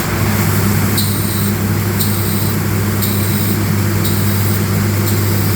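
CNC lathe running while machining an acrylic goose-call barrel: a steady low machine hum that sets in right at the start over an even mechanical noise, with a faint high tick about once a second.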